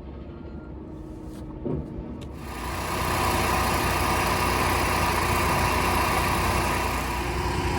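Onan 4000 RV generator starting after a couple of clicks, about two and a half seconds in, then running steadily. It has a fresh fill of synthetic oil and is being run to flush out the old oil.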